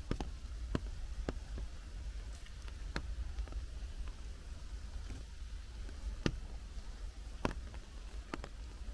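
Rain in a leafy forest: a steady soft hiss with sharp drops landing at irregular intervals, roughly one a second, over a low rumble.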